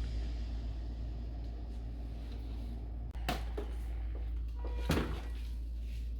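Two short knocks about a second and a half apart, like a cupboard or appliance door being handled, over a steady low hum.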